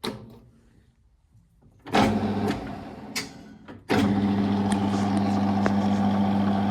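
A click, then the Warco GH1330 geared-head lathe starting up: a loud onset about two seconds in that dies away with a couple of clicks, and from about four seconds the spindle running steadily in low gear with an even hum.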